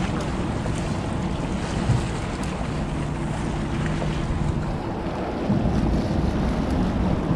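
Small boat's Yamaha outboard motor idling with a steady low hum, under wind buffeting the microphone and choppy harbor water slapping the hull. The engine hum fades about two-thirds of the way through as the wind noise gusts louder.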